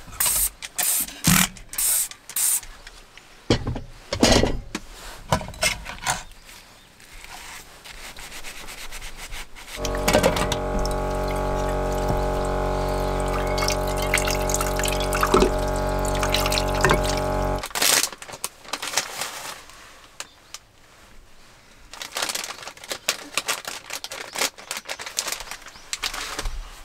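Washing up at a camper's small sink: clinks and knocks of a pan and utensils in the basin, then a small electric water pump running steadily with a low hum for about eight seconds as the tap runs, cutting off suddenly. After that comes rubbing and rustling as a tissue is wiped over a table.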